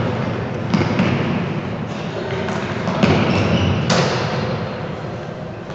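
Futsal ball being struck during play, three sharp thuds about a second, three and four seconds in, each ringing on in the big hall's echo over a steady background noise.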